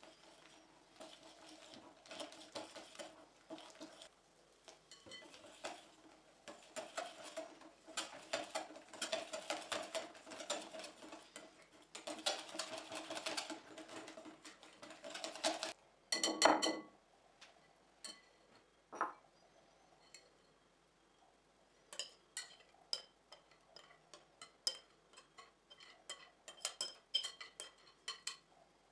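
Wire whisk beating batter in a glass mixing bowl: a fast, dense clicking and scraping of the wires against the glass, with the bowl ringing faintly. About two thirds of the way through it stops with one loud ringing glass knock, followed by a softer one and then scattered taps and scrapes of the whisk against the bowl.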